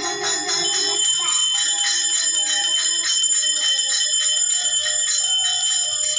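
Electronic keyboard playing a melody of short stepping single notes, with steady bell-like high tones ringing over it.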